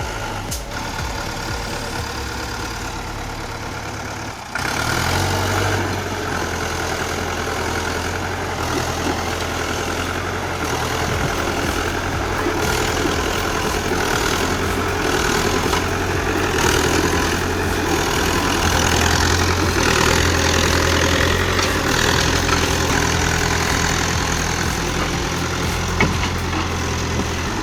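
A heavy engine running steadily. About four and a half seconds in, the sound changes abruptly to a louder engine that runs on to the end.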